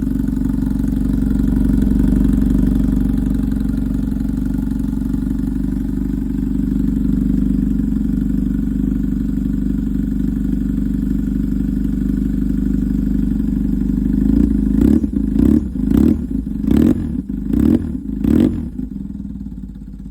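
BMW R1150 motorcycle's air-cooled boxer twin running on a new custom exhaust shortly after a cold start, idling steadily. About fifteen seconds in the throttle is blipped about six times in quick succession, each rev rising and falling back, before it settles to idle again.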